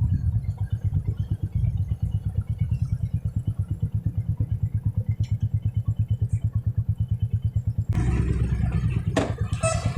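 Motorcycle engine running with a steady, rapid thumping beat, about eight beats a second, growing louder about eight seconds in.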